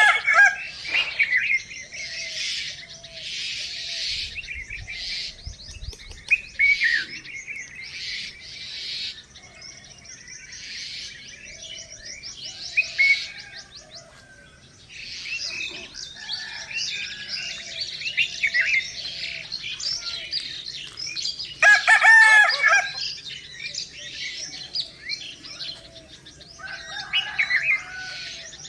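Many small songbirds chirping and trilling without a break, with a rooster crowing once about three-quarters of the way through.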